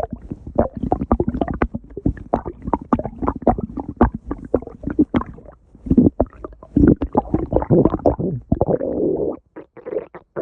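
Stomach growling: a dense, irregular run of gurgles, pops and squelchy clicks, swelling into longer rumbles about seven seconds in and again near nine seconds.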